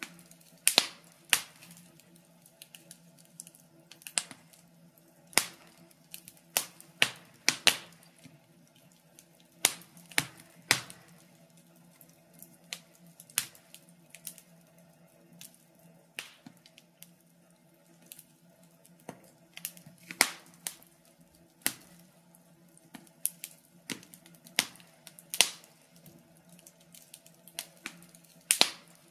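Wood fire crackling in a fireplace: irregular sharp pops and snaps, roughly one a second, some much louder than others, over a faint low steady hum.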